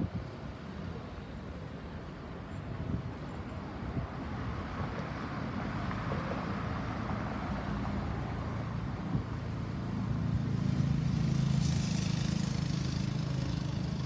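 Road traffic: motor vehicles running past, with one vehicle's engine and tyres growing louder as it passes close about ten to thirteen seconds in. No siren is sounding.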